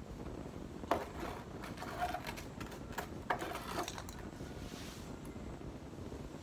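A small plastic stool set down on a tiled patio with a knock, then a few more knocks and the rustle of cut leafy branches being handled.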